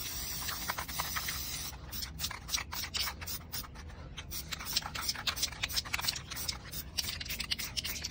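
Aerosol spray-paint can hissing steadily, then, from about two seconds in, spraying in many short, quick hisses and clicks.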